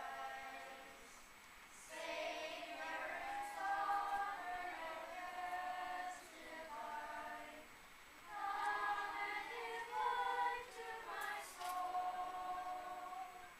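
Children's choir singing in phrases of held notes, with short pauses between phrases.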